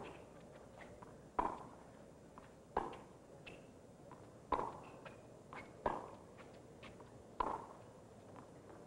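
Tennis ball struck back and forth on racquets in a baseline rally: six sharp hits at a steady pace, about one every second and a half.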